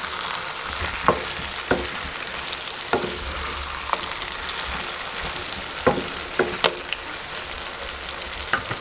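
Chicken and potato pieces sizzling in oil in a non-stick kadai while a wooden spatula stirs them, with a steady frying hiss and a few sharp knocks of the spatula against the pan at irregular intervals.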